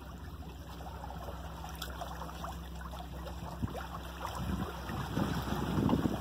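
Water splashing and trickling along the hulls of a trimaran under sail. Wind buffets the microphone in gusts during the second half.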